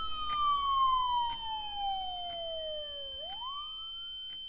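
Siren-like electronic tone sliding slowly down in pitch for about three seconds, then sweeping quickly back up, over a steady high whine and a sharp tick about once a second.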